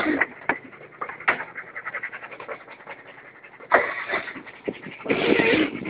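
A 4WD wading through floodwater: water swishing and splashing along the side of the vehicle, with wind rushing over the open window and crackling on the microphone. Two louder bursts of splash and rush about four and five seconds in.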